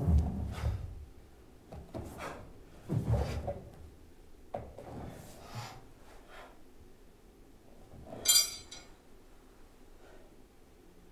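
Bare feet stepping and stamping on a wooden floor, with the swish of a karate uniform, near the start and again about three seconds in. About eight seconds in, one sharp, ringing clink of the metal sai.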